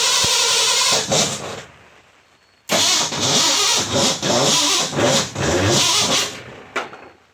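A vehicle engine cranked on its electric starter without starting. The cranking stops about a second in, then after a short pause a second crank of about three and a half seconds wavers in pitch, followed by one brief last burst near the end.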